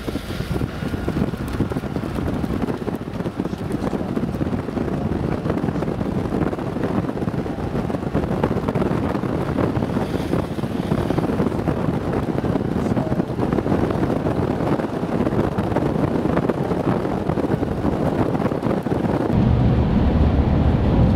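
Gusty wind blowing across the microphone, a rough, steady rush. About two seconds before the end it switches to the steadier low drone of a vehicle driving on a wet road, heard from inside the cabin.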